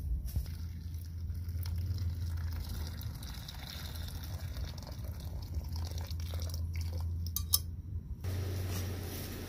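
Noodle cooking water pouring from a steel pot through a handheld wire-mesh strainer into a plastic bucket, over a low steady rumble. Near the end come a few sharp metal clinks as the pot knocks against the strainer.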